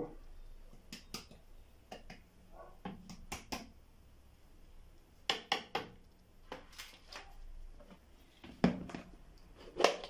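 A plastic spatula clicking and scraping against a terracotta dish of crumbled hard-boiled egg: short knocks in small uneven clusters, the loudest near the end. A plastic tub is handled at the very end.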